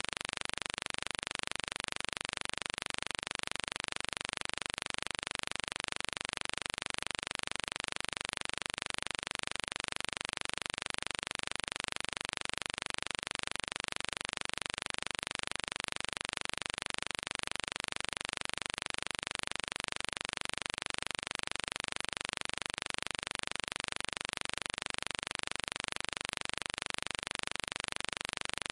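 Steady, unchanging hiss with no distinct events.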